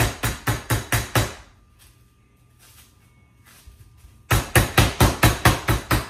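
Metal meat mallet pounding a raw chicken breast flat between plastic wrap on a plastic cutting board: quick, even strikes about four a second. The pounding stops a little over a second in, pauses about three seconds, then resumes.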